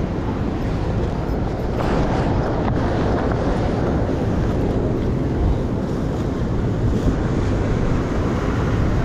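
Steady city street noise: traffic rumble with wind buffeting the microphone, and a brighter hiss swelling for about a second, about two seconds in.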